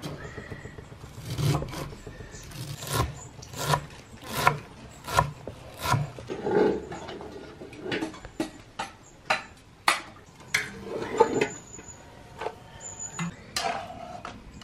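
Knife chopping a pile of fresh dill and green herbs on a thick wooden cutting board: even knocks of the blade on the wood a little under a second apart, turning more irregular in the second half.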